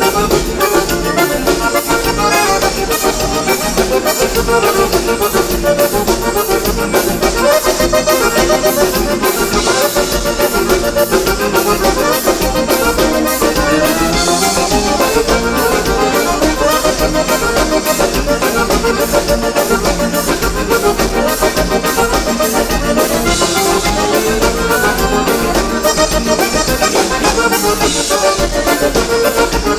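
Instrumental gaúcho dance music: an accordion solo carries the melody over a steady band beat.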